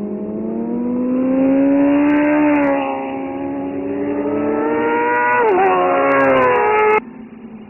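Racing superbike engines at high revs as several motorcycles run through a bend, the engine note climbing, dipping, then climbing again before falling sharply about five and a half seconds in as a bike goes past. The sound cuts off abruptly near the end.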